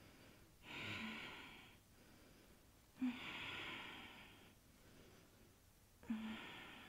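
A woman's slow, audible yoga breathing, the steady throat-hiss typical of Ashtanga's ujjayi breath: three long breaths, the last still going at the end.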